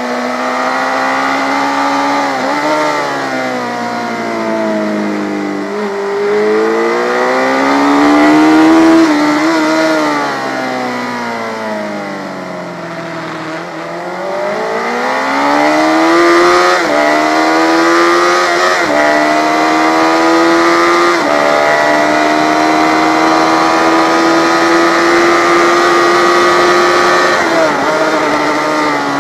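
Yamaha FZ600's inline-four engine at race pace, heard from an onboard camera: the revs fall away and climb again through the corners, then three quick upshifts just past halfway lead to a steady high note that drops near the end.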